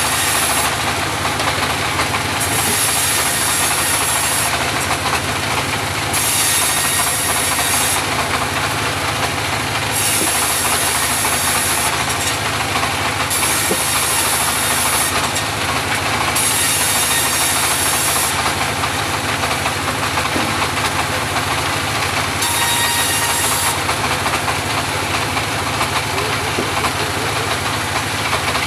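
Homemade portable bandsaw sawmill running steadily, with a high hiss that comes and goes every second or two.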